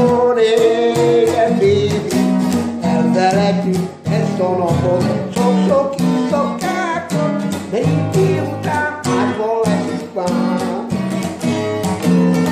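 Acoustic guitar strummed steadily, with a man's voice singing along over it.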